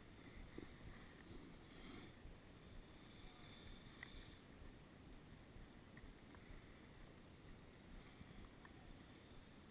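Faint, muffled rumble of skis sliding over packed snow during a downhill run, with a light hiss and a few tiny clicks.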